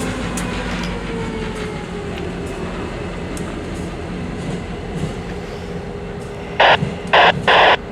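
Track inspection train rolling past on the rails: a steady rumble of wheels on track, with tones that fall in pitch as it moves off. Near the end, three short, very loud bursts of hiss cut in.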